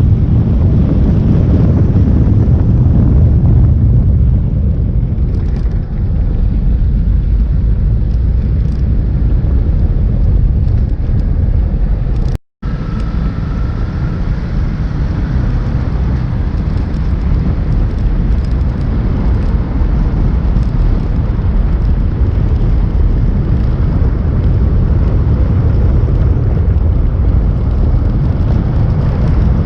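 Onboard road-driving noise: a steady low rumble of wind, engine and tyres as the vehicle travels along a winding road. The sound cuts out completely for an instant about twelve seconds in.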